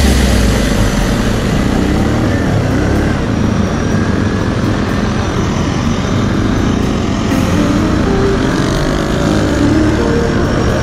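Quad (ATV) engine running under way, its pitch rising and falling with the throttle, over steady rushing noise from wind and tyres on a wet road.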